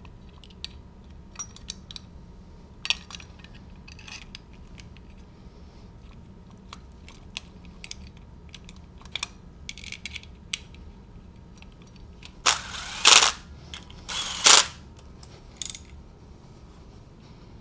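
Hand tools and metal engine parts clicking and clinking as a bracket is bolted onto an engine block, with two louder rattling clatters near the end.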